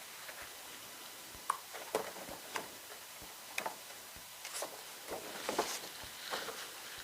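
Light taps and clicks of stiff photo cards being handled and laid down on a table, with soft rustling of card and paper in the second half.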